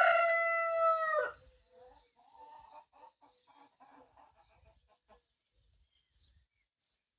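A rooster crowing, its long drawn-out final note ending about a second in, followed by a few seconds of quieter, choppy chicken calls.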